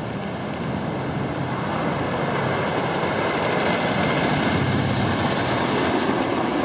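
Roller coaster train rumbling along its track, the noise swelling as it comes closer and staying loud through the second half.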